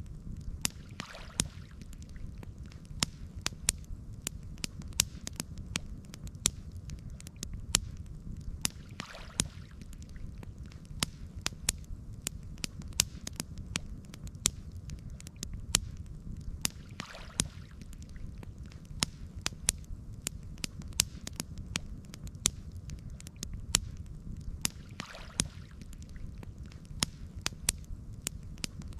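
Wood campfire crackling: frequent sharp, irregular pops and snaps over a steady low rumble, with a faint soft swish recurring about every eight seconds.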